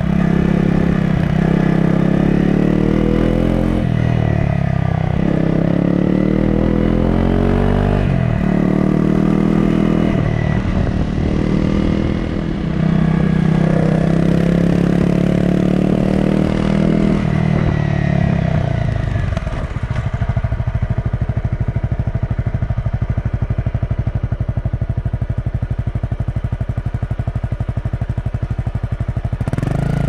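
Honda CRF250 Rally's single-cylinder engine running on the move, its revs rising and falling repeatedly through the first half. From about twenty seconds in it settles into a steady, lower-revving beat.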